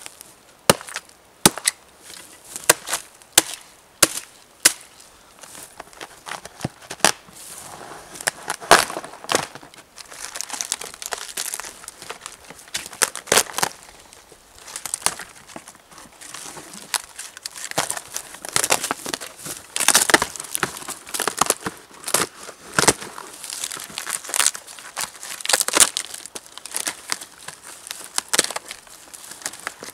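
Hatchet chopping into a dead birch log: a run of sharp strikes in the first several seconds, then a long stretch of crackling and tearing as the papery birch bark is pried and peeled off the log by hand.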